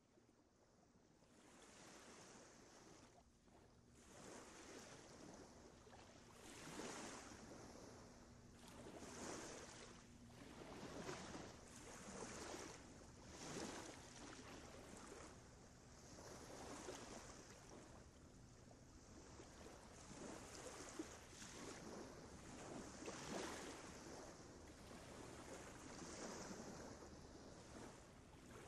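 Faint sound of sea waves washing in, a rushing noise that swells and falls back every two to three seconds, fading in at the start.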